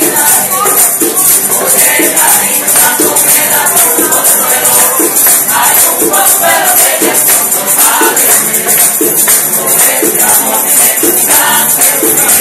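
Puerto Rican parranda music: a group singing a Christmas song over shaken hand percussion that keeps a steady beat and a constant high shaking hiss.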